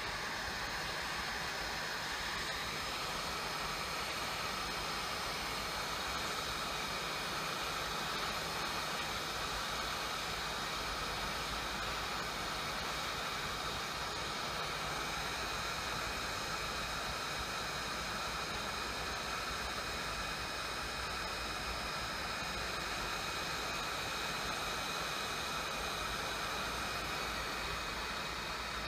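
Hot-air rework gun blowing steadily on a phone logic board to soften the glue around the NAND flash chip: a constant rush of air with a steady fan whine.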